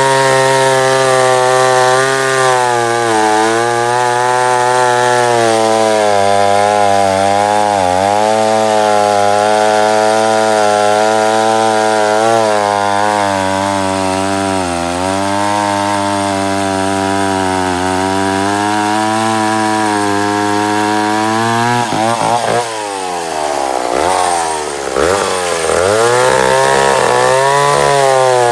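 Vintage McCulloch 1-50 two-stroke chainsaw running hard through wood, its engine note steady with brief dips in pitch as it loads up. About three quarters of the way in, the revs fall and climb back twice before it settles again at full speed.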